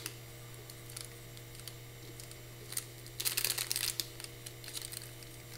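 Quiet handling of wax-melt packaging: a brief burst of crinkling about three seconds in and a few small clicks, over a steady low hum.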